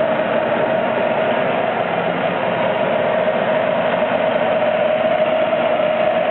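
Clausing Colchester 13 x 40 engine lathe running, a steady mechanical hum with one steady whine through it.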